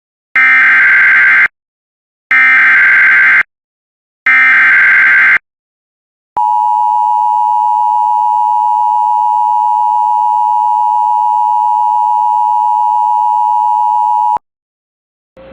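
Emergency Alert System tones: three one-second bursts of SAME header data, then the two-tone attention signal, a steady dual tone held for about eight seconds before cutting off sharply. The sequence announces a severe thunderstorm warning.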